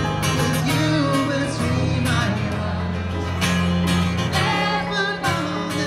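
A street musician's live music: guitar playing with a sung melody over steady bass notes.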